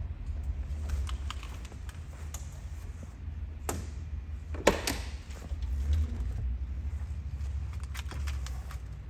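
A steady low rumble with a few sharp clicks and clacks scattered through it, the loudest a double clack about halfway through.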